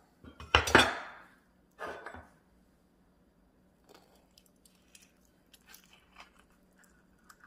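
A few sharp knocks and clatters on a wooden cutting board in the first two seconds, the loudest about a second in. These are followed by faint, soft scrapes of a metal spoon scooping ripe avocado flesh out of its skin.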